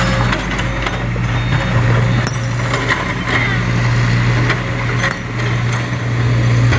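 Heavy diesel engine running steadily with a low drone, with a few light clinks scattered over it.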